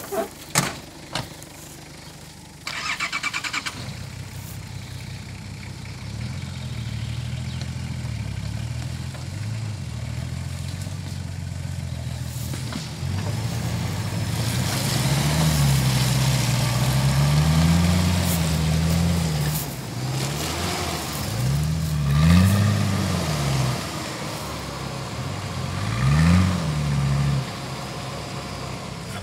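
A few knocks, then a 4x4's engine cranked by its starter for about a second before it catches and runs. The engine is then revved up and down several times under load while a tow strap pulls a pickup stuck in mud.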